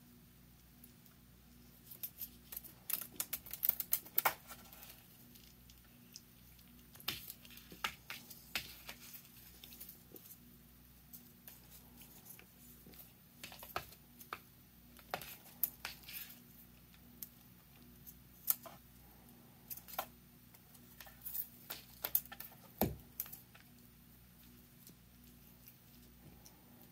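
Light taps and rustles as a cat bats at a feather wand toy brushing against a window frame and wall, coming in irregular flurries with pauses between, and one duller knock near the end.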